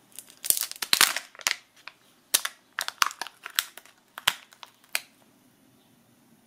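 Kinder Joy egg's plastic packaging crackling and snapping as it is opened and its foil lid is peeled back, a quick run of sharp crinkles that stops about five seconds in.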